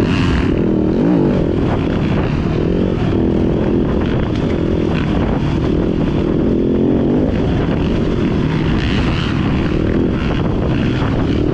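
Dirt bike engine running under load on a rough trail, its pitch rising and falling over and over as the throttle is worked, with a heavy low rumble of wind on the microphone.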